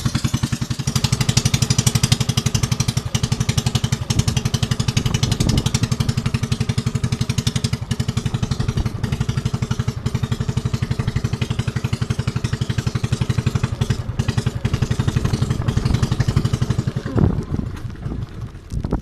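Small engine running steadily with a rapid, even beat, which breaks up near the end.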